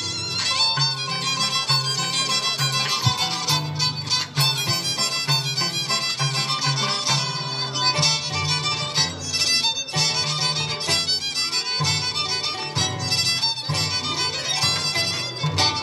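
Violin and Andean harp playing a scissors-dance tune: a busy, fast violin line over a stepping bass. Sharp metallic clicks of the dancers' steel scissors cut through it now and then.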